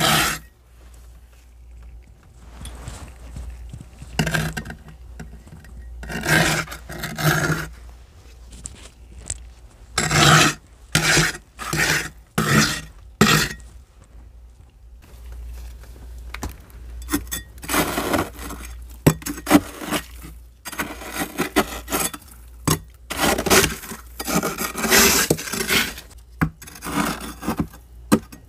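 Thick frost being scraped off the walls of a freezer with a scraper, in irregular strokes: a few separate strokes in the first half, then quicker, closer strokes in the second half.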